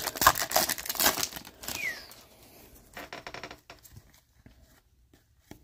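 Foil wrapper of a 2022 Topps Series One baseball card pack crinkling loudly for about two seconds as it is torn open. Then come softer rustles and clicks as the cards are slid out of the wrapper.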